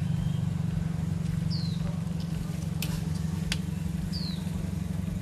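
Steady low hum of an idling engine. Two sharp clicks come about three seconds in as small plastic plates are handled and set down on the concrete, and two short, high, falling chirps sound about a second and a half and four seconds in.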